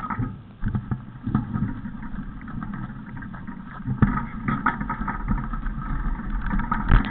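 A vehicle running as it jolts over rough, uneven ground, with a steady rumble and many short knocks from the bumps. It is quieter for the first few seconds, then louder again.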